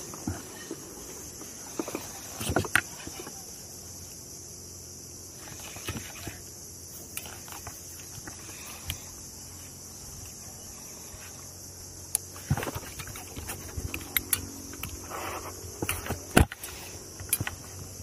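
Occasional knocks and clicks as a fishing rod and spinning reel are handled on a plastic sit-on kayak, a few sharp ones standing out, over a steady high hiss.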